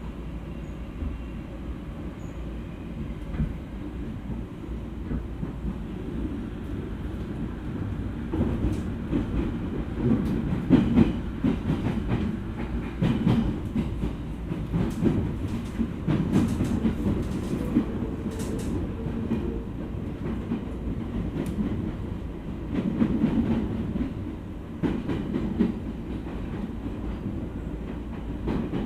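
Running noise of an E231 series commuter train heard from inside the car: a steady rumble of wheels on rail, with a run of wheel clicks over rail joints and points that grows louder about eight seconds in.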